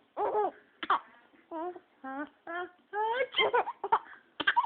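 A baby laughing in a string of short, high-pitched bursts, mixed with babbling.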